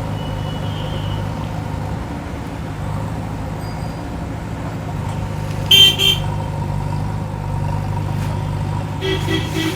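Heavy vehicle engine running steadily under load as it climbs. Two short horn toots come about six seconds in, and a quick run of horn beeps near the end.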